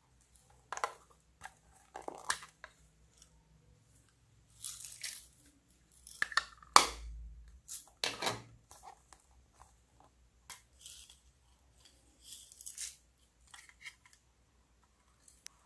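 Hard plastic cases being handled and opened: scattered clicks and taps of the plastic, with a couple of short rustling, hissing stretches and one sharp snap about seven seconds in.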